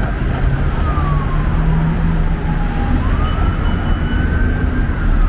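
Emergency vehicle siren in a slow wail, its pitch rising and falling about once every three seconds, over the low rumble of city street traffic.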